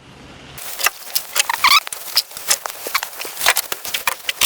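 Sharpie marker being handled and drawn across steel tubing: a quick run of clicks and scratchy strokes with a couple of short squeaks, starting about half a second in.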